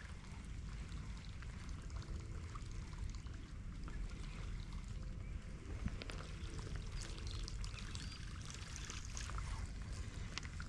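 Rain falling: many scattered light ticks over an even hiss, with a steady low rumble underneath.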